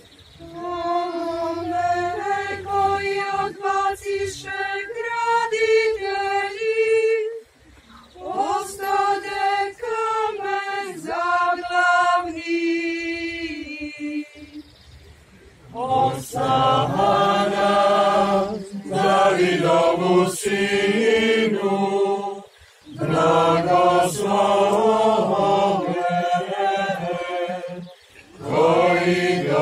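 Unaccompanied liturgical chant: a single voice sings two slow phrases, then about halfway through a congregation joins in singing together, pausing briefly between lines.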